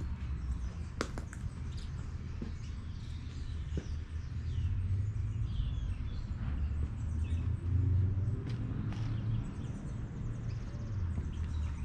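Birds chirping and calling in short, scattered calls over a low, steady rumble.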